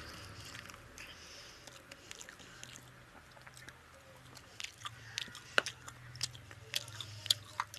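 Close-up chewing of a handful of rice and fish curry eaten by hand. Wet lip smacks and mouth clicks come thick and sharp from about halfway through. A steady low hum runs underneath.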